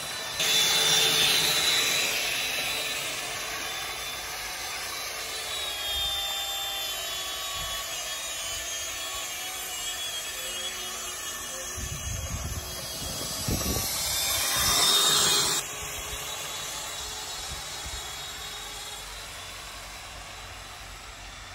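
Motor scooter's small motor whining, its pitch gliding up and down as it speeds up and slows, with wheels rumbling on rough asphalt. The whine is loudest just after the start and again about two-thirds of the way through, where it cuts off suddenly.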